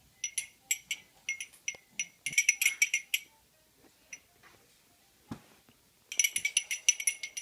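Handheld noisemaker rattled in quick bursts of bright, sharp clicking. It stops for about three seconds midway, with a single knock, then starts again near the end.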